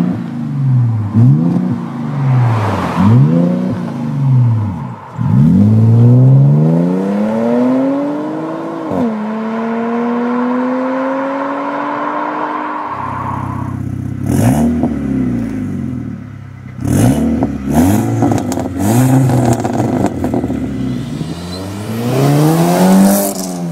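Audi A5 engines with aftermarket exhausts being revved. First a 2010 A5 3.2 V6 with Spintech mufflers blips the throttle several times, then accelerates hard with rising pitch, drops in pitch at a gear change about nine seconds in, and holds a steady note as it pulls away. After an abrupt change about thirteen seconds in, a further series of revs follows, the last from an A5 2.0 turbo four-cylinder with Magnaflow mufflers.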